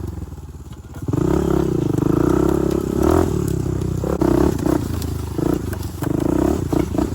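Honda TRX250X ATV's single-cylinder four-stroke engine running under the rider. It is nearly off the throttle for the first second, pulls harder from about a second in, then gets several short throttle blips near the end.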